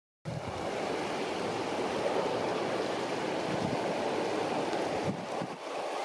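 Wind buffeting the microphone: a steady rushing noise that eases near the end. No call from the bird is heard.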